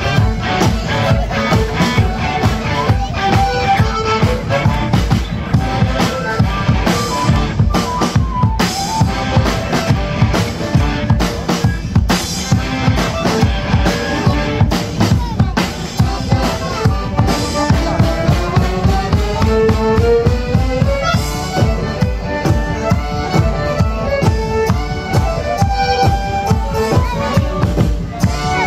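A live folk street band playing an up-tempo tune, with fiddle and accordion carrying the melody over a steady bass-drum and snare beat.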